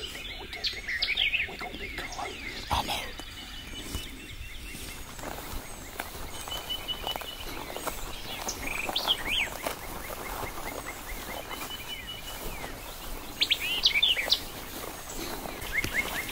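Several songbirds singing: many short chirps and sweeping whistled notes, with a couple of rapid trills and a louder burst of chirps about four-fifths of the way through.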